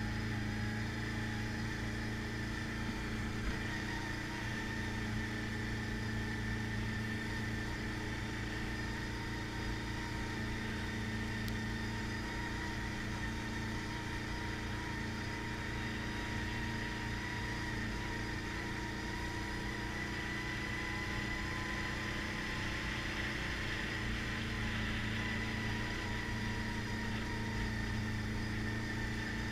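ATV engine running at a steady pace while riding along a rocky dirt trail, a constant drone that barely changes in pitch.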